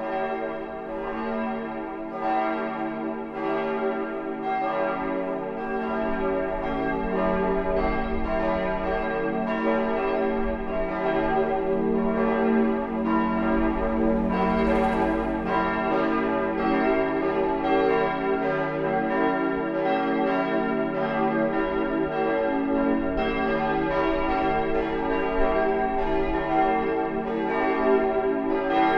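Full peal of church bells, all the bells swinging and striking together in an overlapping, continuous ringing that calls the congregation to the Sunday service.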